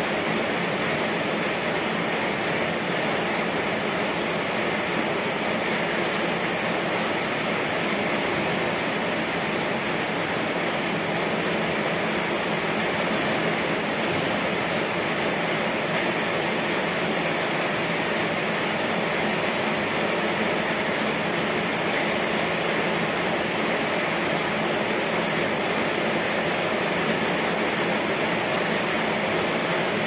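Rain falling steadily: an even hiss with no breaks or changes.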